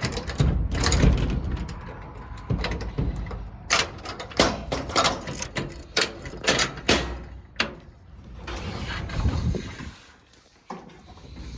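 A run of sharp knocks and clatter over a low rumble, as of things being moved and handled. It fades almost to silence about ten seconds in.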